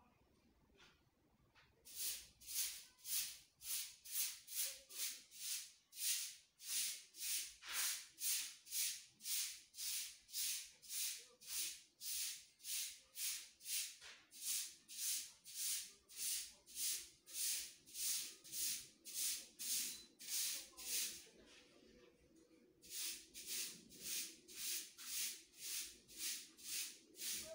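A spoon stirring and scraping flour, milk and egg into a thick batter in a plastic bowl, in quick regular strokes about two a second. The strokes start about two seconds in and stop for a couple of seconds late on before going on.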